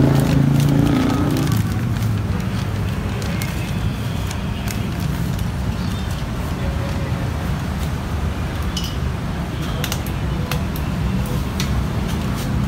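Road traffic noise: a steady low rumble of passing vehicles, with a nearby engine humming at the start that fades out about a second and a half in. Scattered light clicks and taps sound over it.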